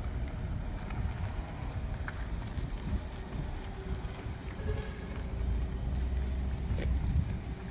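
Wind buffeting the microphone outdoors: an uneven low rumble that swells a little past the middle, with a few faint clicks.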